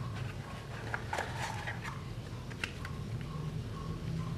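Cardboard phone packaging being handled: faint scrapes, rustles and a few light taps as a white inner box lid and cardboard insert are lifted out, over a steady low hum.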